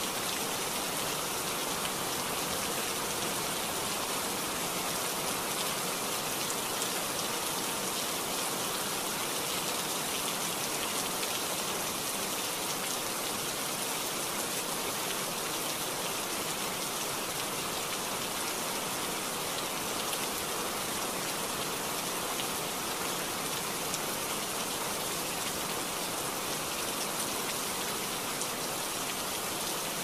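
Heavy rain falling steadily: an even hiss of many drops, unchanging throughout.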